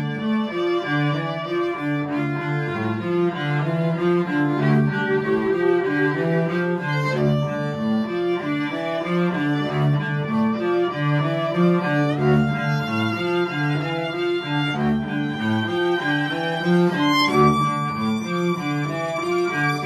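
Violin and cello duet, both bowed: the cello plays a steady run of short low notes beneath the violin's longer held notes.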